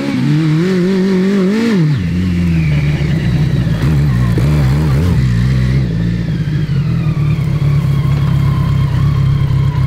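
BMW K100 1000cc inline-four engine of a trophy kart revving up under acceleration, its pitch climbing and then dropping sharply about two seconds in, then running steady with a high whine over the engine note.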